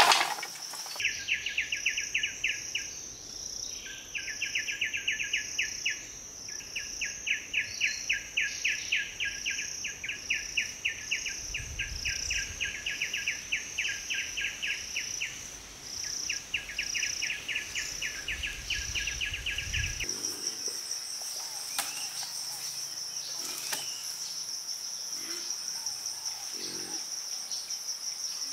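Forest insects calling: a fast pulsing chirp, repeated in phrases of a few seconds, over a steady high-pitched insect drone. About two-thirds of the way in the pulsing stops and only the high drone goes on, with a few faint knocks.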